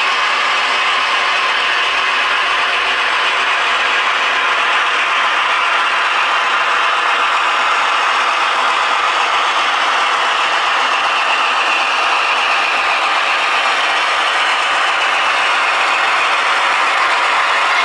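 Model train running along the track: a steady mechanical whirr of motor and gears with the rattle of wheels on the rails.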